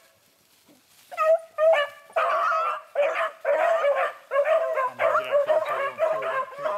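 A pack of beagles baying on a rabbit's trail: several voices overlapping in a continuous chorus of howls and yelps that breaks out about a second in after a short lull.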